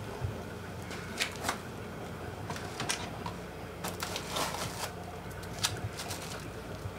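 Plastic food containers and dishes clicking and rattling as they are handled and taken off refrigerator shelves: scattered light clicks and rustles, busiest about four seconds in, over a low steady hum.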